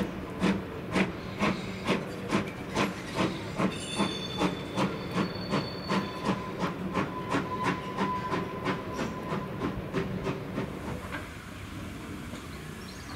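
Steam tank locomotive pulling away, its exhaust chuffing in even beats about two a second, with a thin high-pitched squeal in the middle. The beats fade out about ten seconds in.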